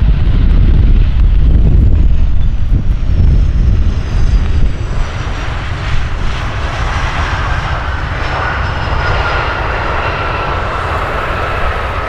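Avro RJ100 (BAe 146 family) four-engined turbofan airliner touching down and rolling out on the runway. A deep rumble dominates the first few seconds. From about five seconds in, the engines' high whine comes through, slowly falling in pitch.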